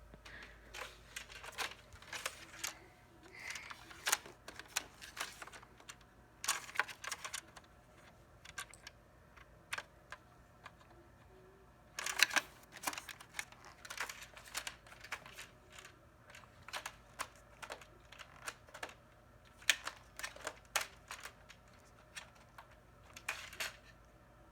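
Many light, irregular clicks and taps, like small hard objects being handled, with a louder cluster of knocks about halfway through.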